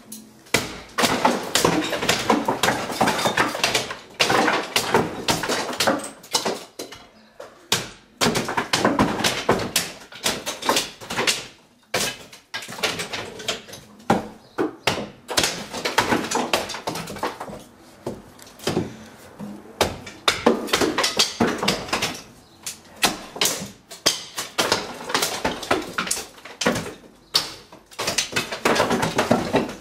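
Wooden ceiling lath and old plaster being prised off the joists with a long bar: repeated bouts of cracking, splintering and falling debris, each a few seconds long with short pauses between.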